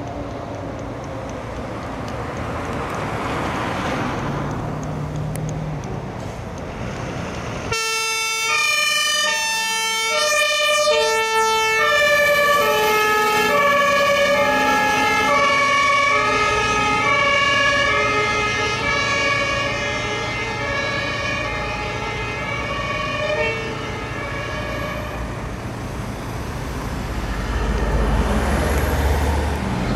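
Truck traffic noise, then about eight seconds in a fire engine's two-tone siren (German Martinhorn) starts abruptly, alternating between two pitches. A few seconds later a second two-tone horn joins out of step with it, as a second fire engine follows. The horns fade out, and a heavy truck engine runs loud near the end.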